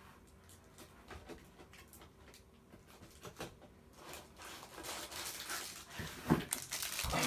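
Rummaging through supplies: scattered small clicks and taps, then from about four seconds in plastic crinkling and rustling with a couple of soft knocks near the end, as packs of plastic card sleeves are handled.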